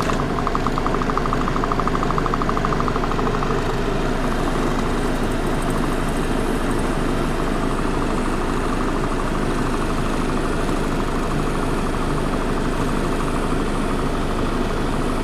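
Mazda 626's 2.0 L FS four-cylinder idling in gear with the AC on, under a steady rush from the cabin blower fan. The fan switches on just as the sound steps up in level.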